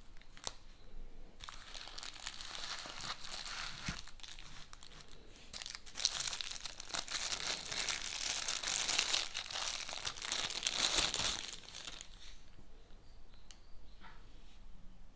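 Plastic packaging crinkling and tearing as it is handled and opened, louder from about halfway through and stopping a few seconds before the end.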